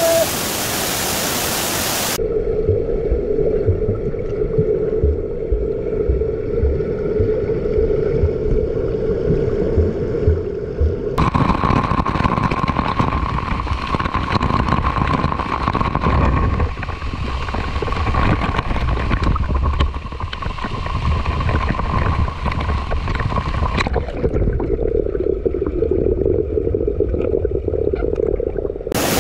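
Waterfall pool water heard through a camera dipping in and out of the water. The open rush of the falls turns abruptly muffled a couple of seconds in, with a steady hum and low knocks. A brighter splashing stretch follows as the snorkeler swims, then the muffled sound returns until the open rush comes back near the end.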